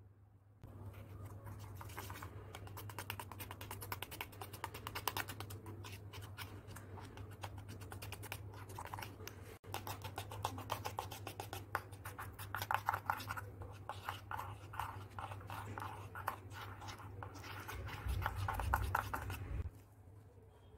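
A tiny wooden spoon rapidly beats egg and milk powder batter in a miniature brass bowl, making quick, dense scratching and scraping strokes. There is a low steady hum underneath, and a short break about ten seconds in.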